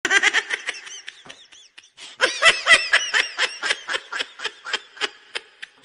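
Rapid, high-pitched laughter, a quick series of 'ha' pulses. One run trails off about a second and a half in, then a louder, longer run starts a moment later and fades toward the end.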